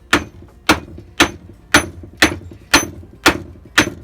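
Hammer blows on a block of wood, driving a new bearing onto a wood lathe's shaft: eight evenly spaced strikes, about two a second.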